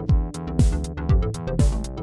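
Electronic music with a beat: a deep kick drum whose pitch drops on each hit, about two a second, with snare or clap hits and hi-hats over held synth chords.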